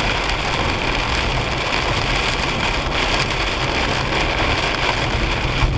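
Steady rain hitting a car's windshield and body, mixed with tyre spray and road noise from driving on a soaked highway, heard from inside the car.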